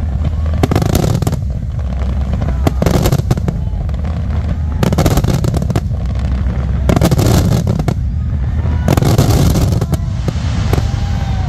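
Fireworks going off in five bursts roughly two seconds apart, each a second-long burst of noise, over a steady low rumble.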